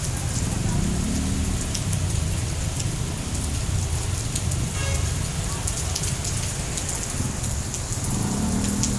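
Heavy rain falling and splattering on surfaces: a steady hiss full of small drop impacts, over a continuous low rumble.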